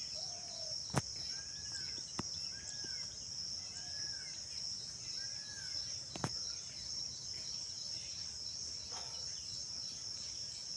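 Steady high-pitched insect chorus, with a bird repeating a short arched call note four times, about once every second and a half. A few sharp clicks stand out briefly.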